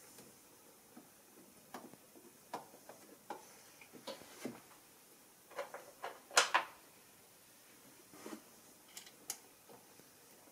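Scattered light clicks and knocks of metal parts and hand tools as the coolant heater module is fitted to the engine, with one louder clank about six seconds in.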